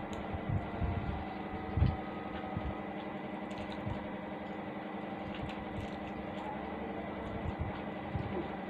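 A person eating noodles close to the microphone: soft slurps, chewing and small mouth clicks, with a few low thuds, over a steady mechanical hum.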